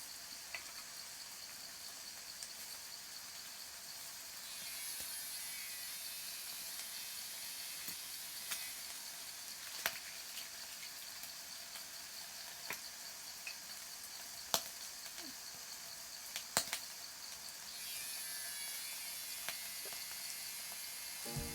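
Meat sizzling faintly on a mookata grill, with a few sharp spattering pops, under a steady chorus of cicadas. The cicadas swell louder twice, about four seconds in and again near the end.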